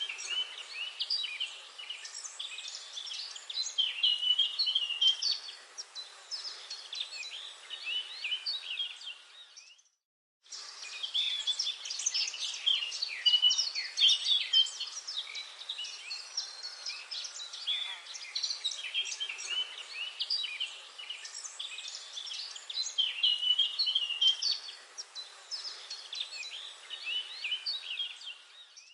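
Many small songbirds chirping and trilling at once in a forest chorus, calls overlapping densely. About ten seconds in the sound cuts out to silence for half a second, then resumes.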